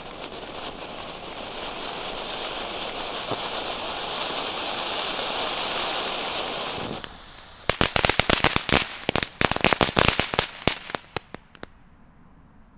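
Lesli Vegas Volcanos Category 1 fountain firework spraying sparks with a steady hiss that grows louder for about seven seconds, then breaks off. After a short pause comes its crackling finale: a dense run of sharp cracks for about four seconds, then it stops.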